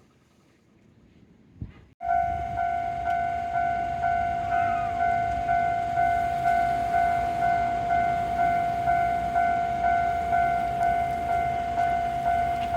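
Railway level-crossing warning bell switching on suddenly about two seconds in, then ringing a steady clanging tone that pulses about twice a second.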